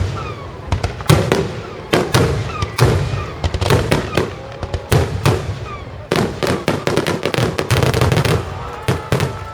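Aerial fireworks bursting in quick succession: loud bangs, one or more every second, with crackling between them.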